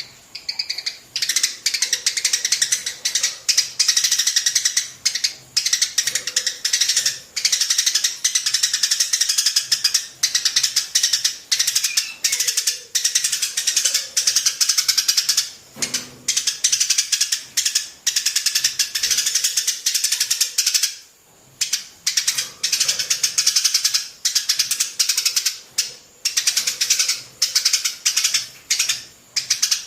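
A group of sparrows chirping in a fast, dense chatter. The high-pitched calls come in quick runs of a second or two, with short breaks between them.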